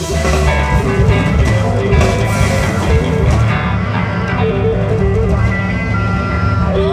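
Live blues band playing electric guitar, bass guitar and drum kit. The cymbals and drums thin out about halfway through, leaving held, bending electric guitar notes over the bass.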